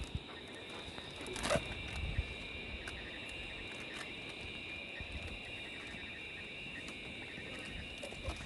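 Steady, high insect chorus buzzing without a break. A couple of knocks about one and a half and two seconds in come from footsteps on the timber bridge deck.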